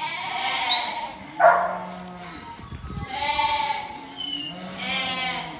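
Sheep bleating: about four long, wavering bleats from the penned mob, with one short, loud sound about one and a half seconds in.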